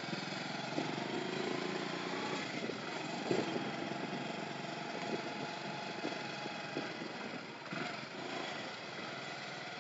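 Motorcycle engine running steadily as the bike is ridden slowly, mixed with steady wind and road noise.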